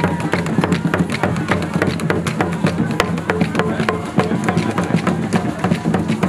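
Drumming in a fast rhythm of dense, sharp, wooden-sounding strikes.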